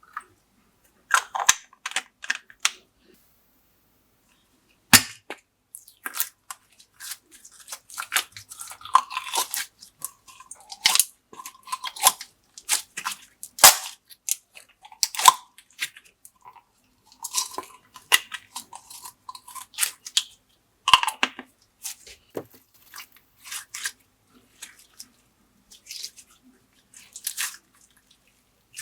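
Glossy slime being pressed and kneaded by hand, making irregular sharp clicking pops of trapped air, with a short pause a few seconds in.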